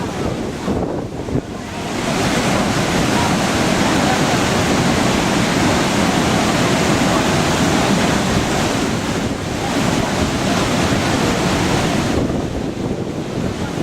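Manavgat waterfall's water rushing in a loud, steady noise that barely changes.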